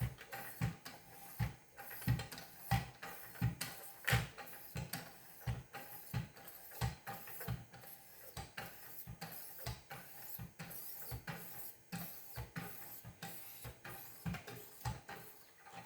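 Fine-grit sharpening stones on a Wicked Edge guided sharpener stroked by hand along a kitchen knife edge, about two strokes a second, each a light knock with a short scraping hiss.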